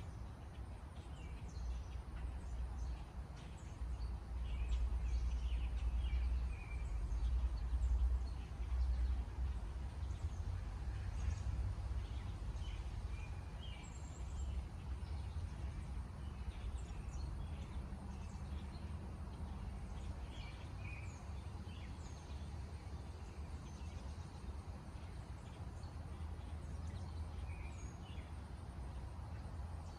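Outdoor garden ambience: a low rumble, heaviest in the first third, under short, scattered bird chirps.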